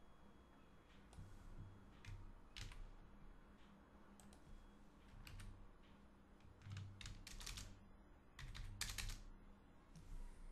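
Computer keyboard keys being tapped in irregular clicks and short runs, with a few dull thumps from the desk under some of the strokes.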